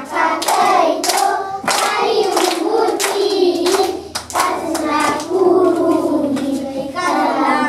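A group of young children singing a local song together in a small room, clapping their hands along to the singing.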